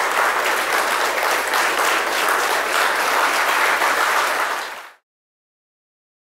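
Audience applauding steadily, a dense patter of many hands clapping, fading out quickly about five seconds in.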